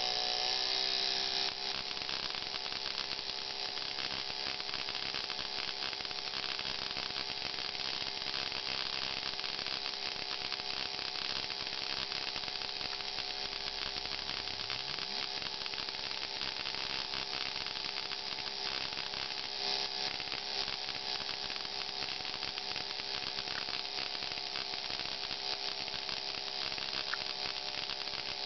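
Induction coil running: its interrupter buzzes, rising slightly in pitch at first and then holding steady, while high-voltage sparks crackle across the discharger gap.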